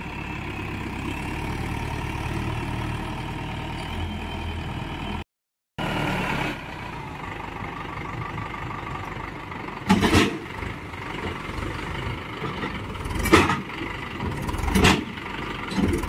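Mahindra Yuvo 415 DI tractor's four-cylinder diesel engine running steadily while the trolley's hydraulic tipper raises and dumps the load of soil. After a break, the engine idles, with three short, loud bursts of noise in the second half.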